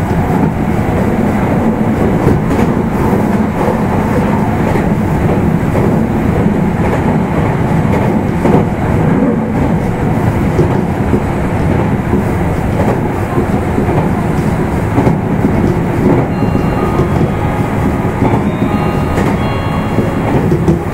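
Meitetsu 1000/1200 series electric train running, heard from inside motor car Mo 1414. A steady rumble of traction motors and wheels with wheels clattering over the rail joints.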